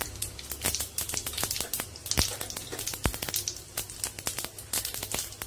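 Mustard and cumin seeds frying in hot oil in a kadai, sizzling with many sharp, irregular crackles and pops: the spice tempering (phodni) at its start, the oil hot enough for the seeds to splutter.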